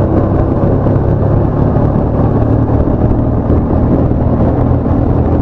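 Motorcycle engine running at a steady speed while riding, with road and wind noise.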